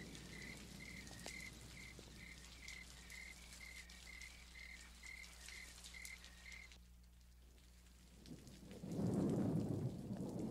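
Night-time outdoor ambience: a cricket chirping evenly, about two or three chirps a second, over a faint hiss and low hum. The chirping stops about two-thirds of the way in, and a low rushing swell of noise rises near the end.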